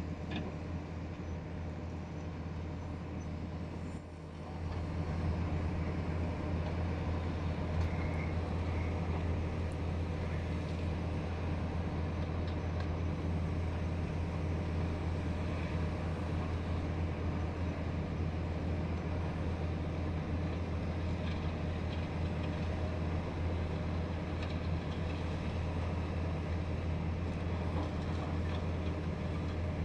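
Heavy machinery's diesel engine running at a steady speed, a continuous low hum that grows louder about four and a half seconds in.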